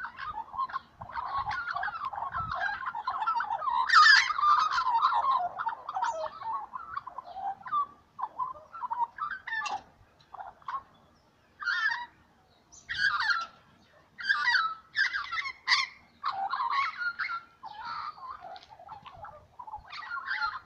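Young Australian magpies singing: a dense warbling chorus for the first several seconds, loudest about four seconds in, then breaking into shorter separate phrases about once a second.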